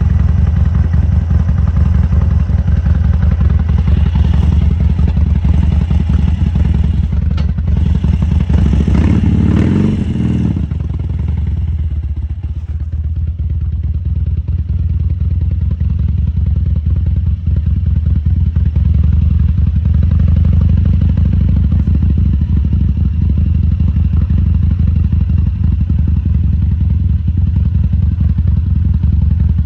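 A 2014 Harley-Davidson Sportster XL1200C's 1200 cc air-cooled V-twin running at low revs with its uneven, lumpy beat. About eight seconds in the revs rise briefly, then drop back a couple of seconds later to a steady low running note.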